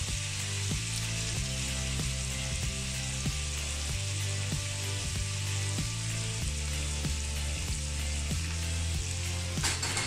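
Diced bacon and freshly added minced garlic sizzling steadily in a frying pan, a constant hiss of fat frying. Background music with a steady beat and bass line plays underneath.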